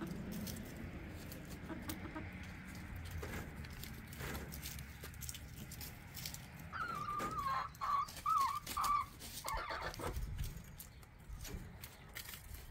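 Domestic hens clucking, with one drawn-out, wavering call about seven seconds in, among scattered light clicks.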